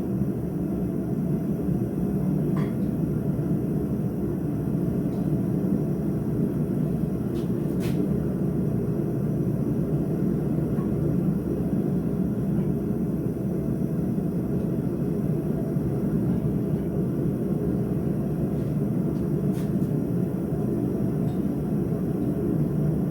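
A blacksmith's forge running with a steady, low, even rushing noise, with a couple of faint light clinks.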